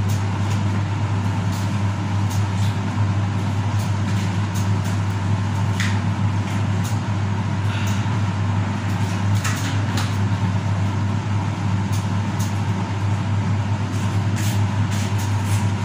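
Steady low electrical machine hum with an even background rush, unchanging throughout, with a few faint ticks.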